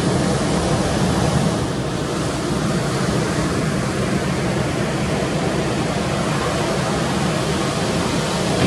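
Steady rush of ocean surf, a continuous noise without a beat or distinct crashes.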